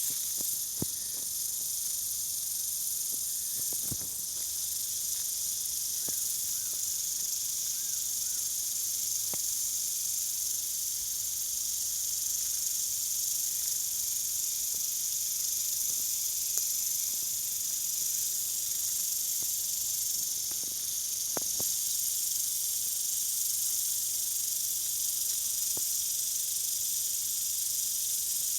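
Water spraying from hanging overhead mini-sprinklers: a steady high hiss, with a few faint clicks scattered through it.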